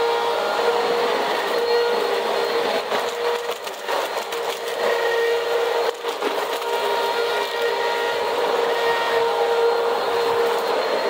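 Vacuum cleaner running on a cement floor: a steady motor whine with irregular crackling and ticking as grit and dirt are sucked up. The sound dips briefly twice in the middle.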